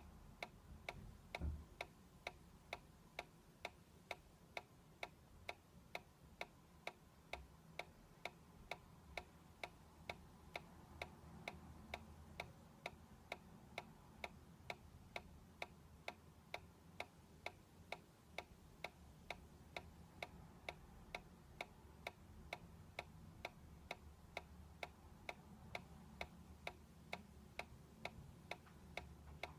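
Faint, even clicking at about two clicks a second from a solar-powered dancing toy's swinging mechanism, over a low room rumble, with one dull thump about a second and a half in.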